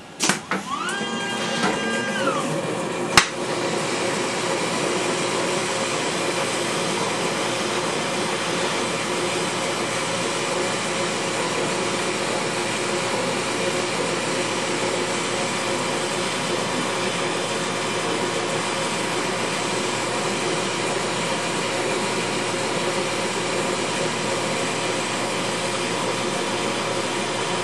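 Litton glass-lathe burner flame running with a steady, even hiss as it heats a quartz tube, with a faint machine hum beneath. In the first seconds a short mechanical whine rises, holds and falls, and a single sharp click follows.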